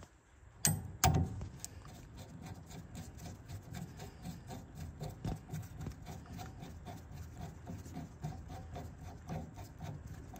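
A small 5/16 bolt being turned into a steering wheel hub adapter with a hand driver: two sharp knocks about a second in, then a steady run of light clicks and scraping as it threads in.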